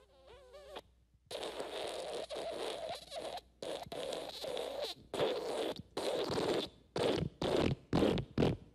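Fart sound effects: a short wavering, pitched fart, then after a brief pause a long raspy, sputtering fart that breaks up into a quick run of short bursts near the end.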